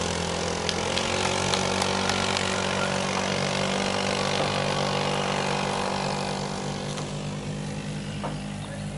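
Small go-kart engine idling steadily, growing a little fainter over the last few seconds.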